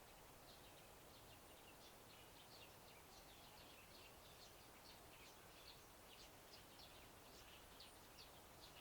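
Faint chirping of small birds, many short high chirps in quick, irregular succession, over a steady outdoor hiss.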